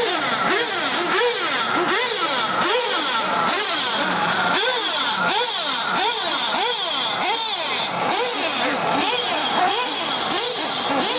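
Small nitro engines of 1/8-scale R/C short-course trucks running laps, several at once, each whining up in pitch under throttle and dropping off again, over and over.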